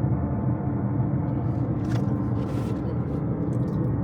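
Jackhammer hammering into the clay floor of an underground sapphire dig: a steady, loud, rapid rattling rumble.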